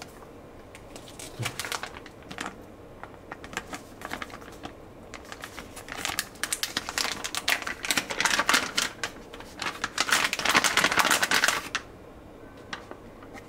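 Foil mylar pouches crinkling and crackling as they are handled and pulled open, a quick run of sharp clicks that is sparse at first and turns dense from about six seconds in until shortly before the end.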